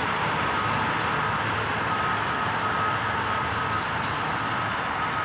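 Subway train running along the track: a steady rush and rumble of wheels on rails, with a faint high whine coming and going.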